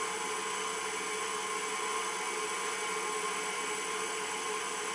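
KitchenAid tilt-head stand mixer running steadily, its beater mixing cupcake batter in a glass bowl: an even motor whir with a constant hum.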